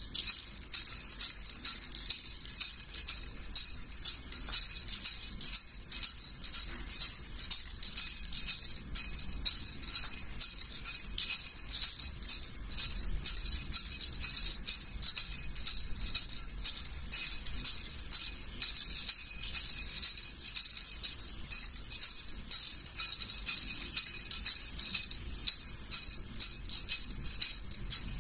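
Small jingle bells shaken by hand without pause, a dense steady jingling that starts abruptly.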